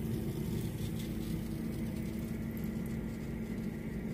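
Steady electric motor or fan hum from a running kitchen appliance, an even drone with a low rumble under it.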